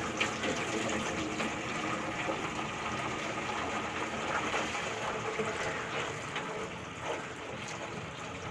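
Water running from a bucket into a plastic tub, a steady splashing stream as the tub fills.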